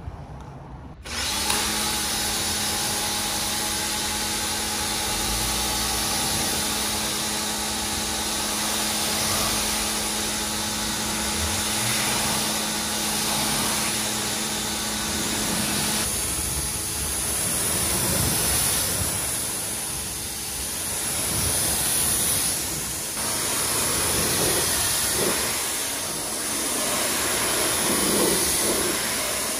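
Pressure washer starting up about a second in, its pump motor humming steadily under the hiss of the water jet spraying onto car bodywork. About halfway through the hum drops away and the spray goes on, rising and falling as the jet sweeps across the panels.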